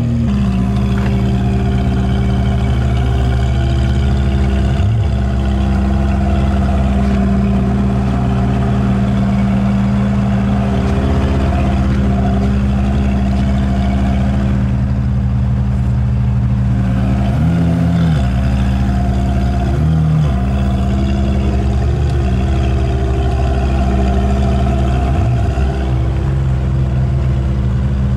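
Ferrari F430 Spider's V8 idling steadily through a Kline aftermarket exhaust, loud and even, with a couple of brief wavers in the engine note about two-thirds of the way through.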